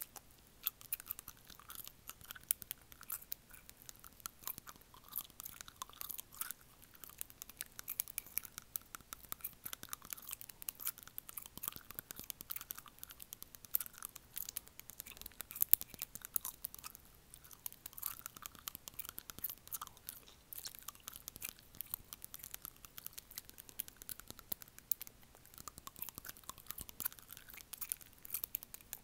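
Acrylic fingernails tapping and scraping against teeth, close to an earphone microphone: rapid, irregular clicks and crackles, with one louder click about two-thirds of the way through.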